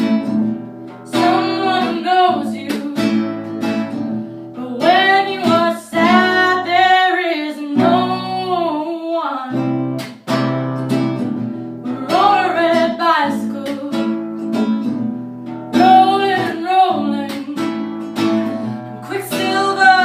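A woman singing in phrases over a strummed acoustic guitar, in an empty room that lends the sound its echo.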